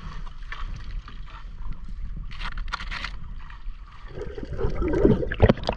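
Wet gillnet being hauled by hand into a small wooden boat, with water splashing and running off the mesh and scattered knocks against the boat. The splashing grows louder near the end.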